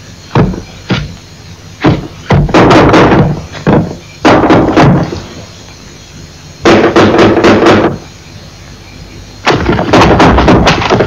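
A series of loud knocks and bangs with bursts of noisy crashing between them, the bursts each lasting about a second. There are a few pauses.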